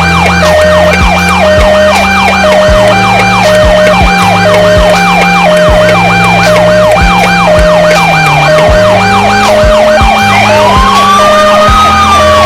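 Several electronic emergency sirens sounding at once. A fast yelp sweeps up and down about three times a second over an alternating two-tone hi-lo, with a low thumping beat underneath. About ten seconds in, a slow wail rises and begins to fall.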